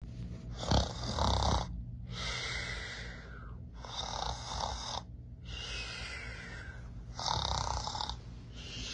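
Snoring put on for a sleeping plush puppet: about six drawn-out, rough breaths, each lasting about a second, with short gaps between.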